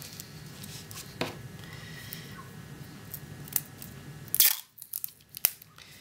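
A strip of adhesive tape being cut off and pressed onto paper: light clicks and rustling, then one sharp snip about four and a half seconds in.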